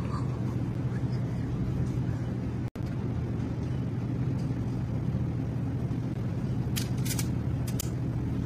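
Steady low rumble with no speech, cutting out for an instant about three seconds in, with a few faint clicks near the end.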